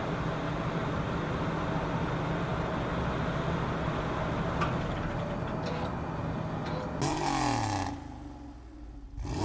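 2020 Land Rover Discovery Sport S's 2.0-litre turbocharged four-cylinder idling steadily after a cold start. About seven seconds in it gives way to a whooshing end-card sound effect with falling tones, which comes again near the end.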